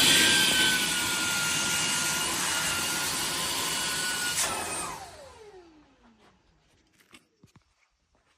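SilverCrest SHAZ 20 A1 20 V cordless cyclonic vacuum cleaner running with a steady high whine and rush of air, then switched off about four seconds in, its motor winding down in a falling whine. A few faint clicks follow near the end.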